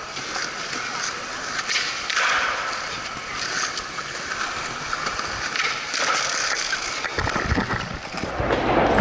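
Skateboard wheels rolling over smooth concrete, with a few sharp clacks from the board. A deeper rumble joins near the end.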